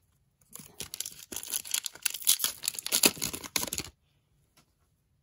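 Hockey card pack wrapper crinkling and tearing as it is handled and opened, a dense run of crackles that stops about four seconds in.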